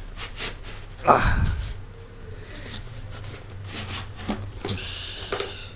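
A cardboard sleeve being slid off a stainless steel motorcycle exhaust silencer by hand: scattered scraping and rustling of cardboard against metal, with a louder knock about a second in, over a steady low hum.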